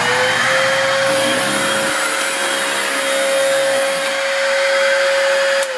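Vacuum cleaner running: a steady motor whine over a rush of air, the whine still climbing to full pitch at the start. Near the end it is switched off and the whine falls away as the motor winds down.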